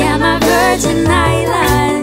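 Pop song: a woman's singing voice, drawn out and bending in pitch, over steady bass notes and accompaniment.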